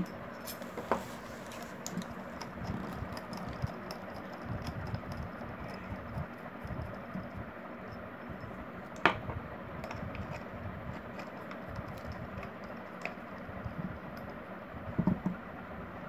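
Tubular box spanner working the end-cover nuts of a table fan motor: small metal clicks, ticks and scrapes as the tool is fitted and turned, with one sharper click about nine seconds in.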